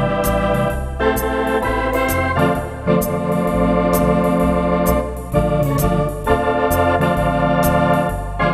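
Wersi Atlantis electronic organ playing in a swinging Hammond-style drawbar registration: sustained chords on the manuals over a pedal bass line that changes note about every half second, with light crisp ticks on top.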